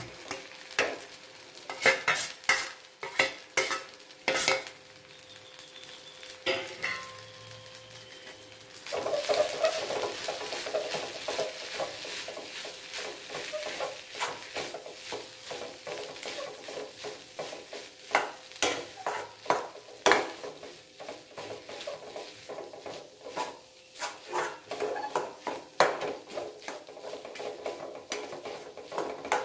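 A steel spoon clinks and scrapes against a steel plate and the kadai as cooked rice is knocked off into the pan, in a few sharp separate clinks. From about nine seconds in, steady stirring and mixing of the rice in the hot kadai with a light sizzle and frequent clinks of the spoon on the pan.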